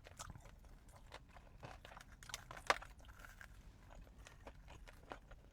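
Close-miked chewing of a ramen-crusted Korean corndog: a run of small crisp crunches, with one sharper crunch about halfway through.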